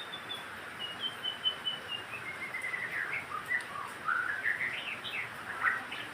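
White-rumped shama (murai batu) singing: a long run of clear whistled notes stepping down in pitch, followed by quicker rising phrases and sharp notes near the end.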